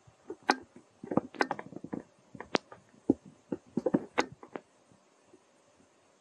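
A baby macaque chewing a green fruit close to the microphone: a quick run of wet, crunchy bites and mouth smacks that stops about four and a half seconds in.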